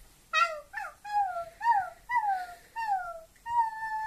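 A puppy whining in a run of short, high cries, each sliding down in pitch, about six in quick succession, then a longer held whine near the end. It is whining at being handled and petted, annoyed.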